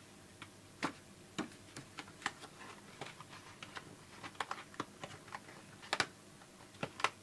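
Irregular light clicks and taps of small hard objects, a few a second and uneven in loudness, with a sharper click about a second in, another about six seconds in and one near the end.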